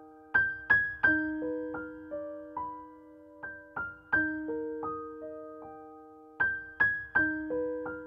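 Background music: slow keyboard notes, piano or electric piano, struck one or two at a time and left to ring and fade, in a gentle figure that repeats every few seconds.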